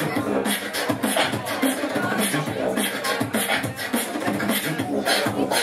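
Beatboxing into a handheld microphone: a steady rhythm of sharp vocal drum hits, kicks, snares and hi-hat sounds, with short pitched vocal tones woven in.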